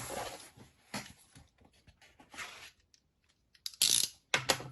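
A mailed parcel being handled and opened by hand: packaging rustling and clicking, with two short, loud tearing noises near the end.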